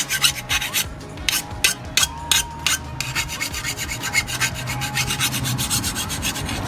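Hand file rasping along the edge of a steel lawnmower blade in repeated scraping strokes, grinding it to a wedge-shaped cutting edge. About three strokes a second at first, then quicker and lighter strokes about halfway through.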